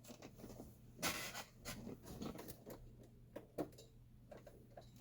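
Faint rustling, scraping and light knocks of hands rummaging for a USB cable, with a louder scrape about a second in.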